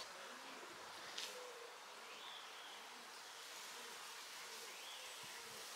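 Faint outdoor garden ambience: a soft steady hiss with a few faint high chirps and a brief tick about a second in.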